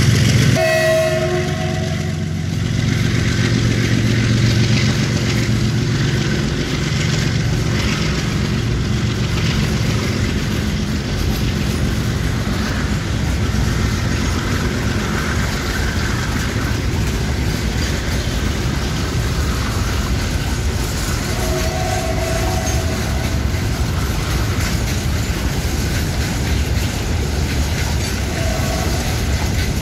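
Long freight train of covered goods wagons rolling past close by: a steady rumble and clatter of wagon wheels on the rails. A brief tone sounds about a second in, and twice more near the end.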